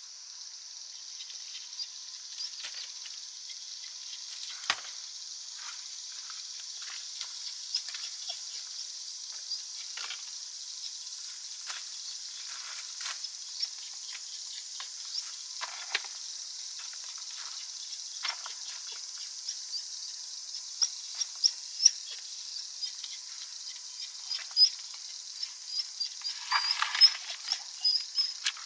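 A steady high-pitched insect chorus, with scattered light clicks and taps of small things being handled, a short rustle and a run of quick high chirps near the end.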